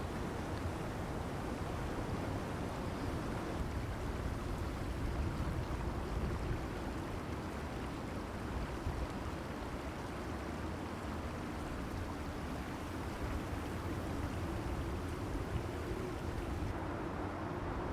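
Brisk winter wind blowing ahead of an incoming storm: a steady rushing noise that rises and falls slightly.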